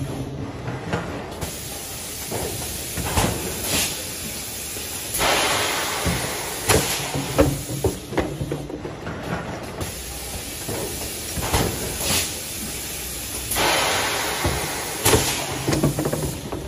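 Two-cavity PET stretch blow moulding machine running a cycle for 5 L bottles. Its mechanism gives sharp clicks and clunks, and two long hisses of compressed air come about eight seconds apart.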